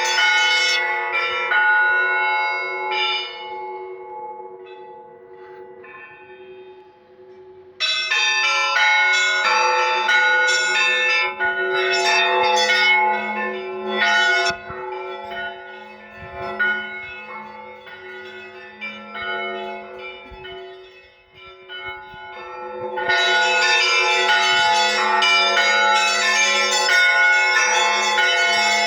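Russian Orthodox church bells rung by hand: rapid strokes on several smaller, higher bells over the lingering hum of the larger bells. The striking thins out a few seconds in, picks up again at about eight seconds, eases in the middle, and returns to full ringing about two-thirds of the way through.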